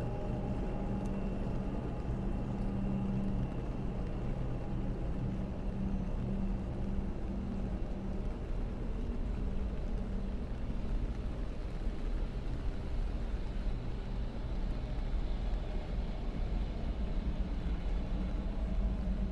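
A steady low mechanical hum over a deep rumble, like an engine or machinery running. The hum is strongest in the first half and eases off in the second.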